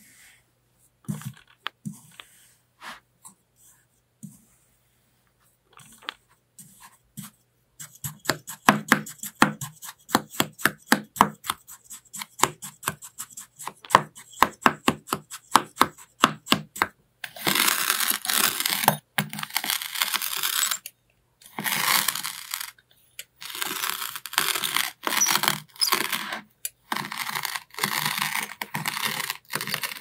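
Kinetic sand being cut and crumbled with a fork: a few soft crunches at first, then quick crisp crunches several a second, followed from about halfway by louder, longer scraping crunches, each about a second long with short pauses between.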